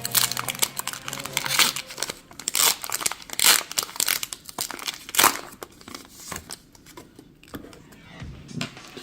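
Foil wrapper of a Pokémon trading-card booster pack being torn open and crinkled: a run of crackling rips over the first five seconds or so, loudest about three and a half and five seconds in, then quieter rustling as it is handled.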